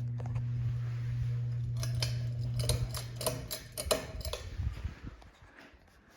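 A Hunter Castleton ceiling fan's motor hums steadily; the fan has a bad capacitor. About two seconds in comes a run of sharp metallic clicks and rattling, which fits its pull-chain switch being worked. The hum cuts off a little after three seconds in.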